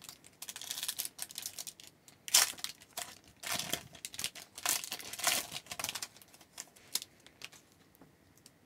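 Paper-and-plastic rustle of a trading-card pack being handled: the wrapper crinkles and tears in irregular crackles as a pack of hockey cards is opened.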